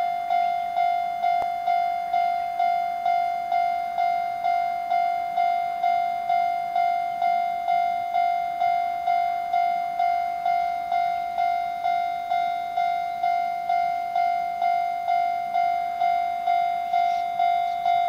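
Japanese level-crossing alarm ringing: an electronic bell tone striking evenly a little under twice a second, warning of a train approaching on the line.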